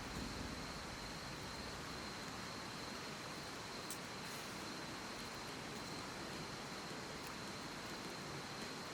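Steady outdoor ambient hiss with a thin, steady high-pitched tone running through it, and a single faint click about four seconds in.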